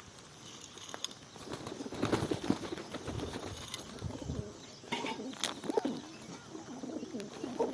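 Birds calling with low cooing sounds, mixed with a few sharp clicks or taps.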